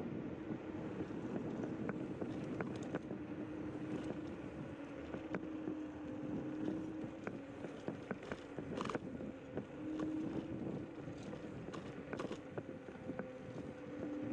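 Zero 10x electric scooter being ridden along a paved path: a low motor whine that wavers slightly in pitch with speed, over steady tyre and wind noise, with scattered sharp clicks and rattles.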